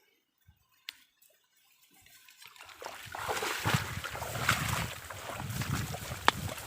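Water sloshing and splashing, starting about two and a half seconds in and growing louder, with a sharp click near the end.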